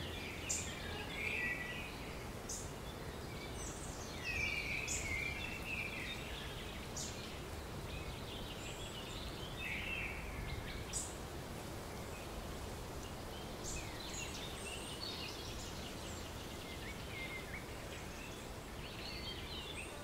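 Woodland ambience: scattered birdsong of short chirps and brief warbled phrases, with a few sharp high ticks, over a steady low background hiss.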